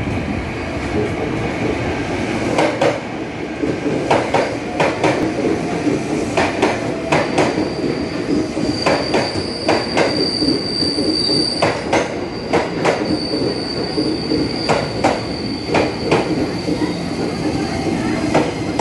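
KRL Commuter Line electric train running along the platform: a steady rail rumble with wheels clacking over rail joints, often in quick pairs. A high steady squeal comes in about seven seconds in, loudest around ten seconds, and carries on.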